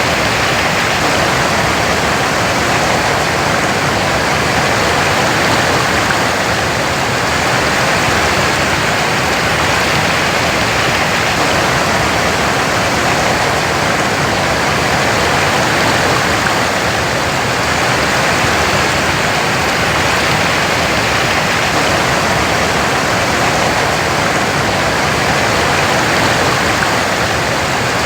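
Waterfall: a steady, loud rush of falling water, with slow gentle swells in level.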